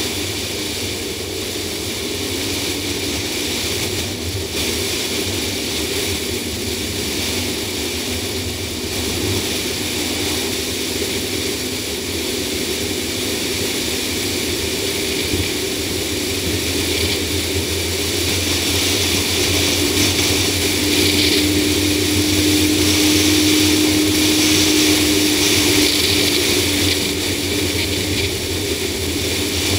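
A 2004 Ford Explorer's V8 and its tyres and wind noise while driving on an open road, heard from a camera mounted on the hood. The sound is a steady hum and rush that grows a little louder over the second half, with a steady engine tone coming in partway through.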